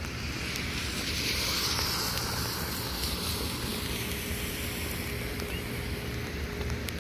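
Steady rain hissing, with a louder hiss that swells about a second in and fades over the next few seconds.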